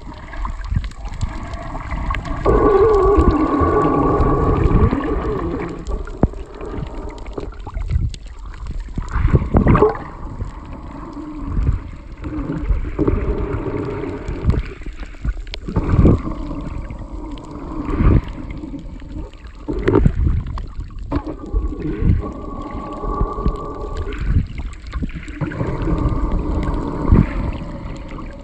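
Muffled underwater water noise heard through a phone's microphone below the surface: gurgling and sloshing with wavering tones for a few seconds at a time and low thumps about every two seconds, as swimmers move through the water.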